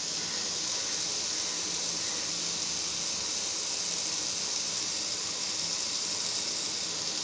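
Bitter gourd rings frying in a little oil on a flat tawa over a low flame: a steady sizzling hiss.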